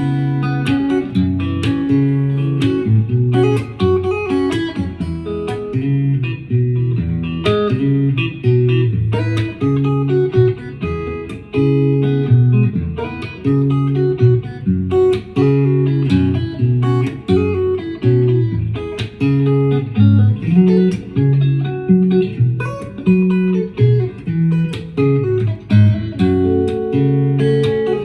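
Guitar music: a steady run of plucked notes and chords.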